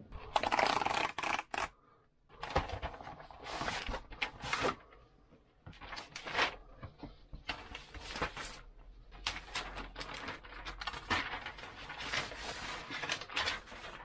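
Cardboard packaging and its paper wrapping being handled and rustled in irregular bursts, with a few sharp clicks, as the laptop's screen bezel is unpacked.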